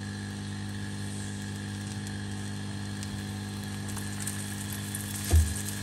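Aloo paratha sizzling faintly on a hot tawa over a steady low hum. The sizzle grows brighter over the last couple of seconds as oil is spread on top. A short low thump comes near the end.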